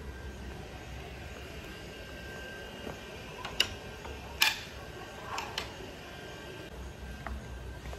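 Faint steady outdoor background noise with a low hum, broken by a few sharp clicks about halfway through, the loudest about four and a half seconds in.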